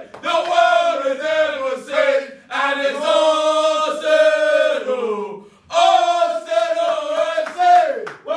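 A small group of men chanting and singing loudly together to celebrate a goal, in long sung phrases with short breaks about two and a half and five and a half seconds in.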